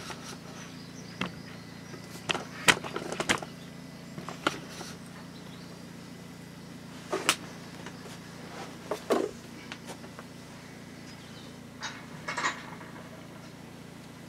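Scattered knocks and clicks of gear and fittings being handled in a small room, over a steady low hum.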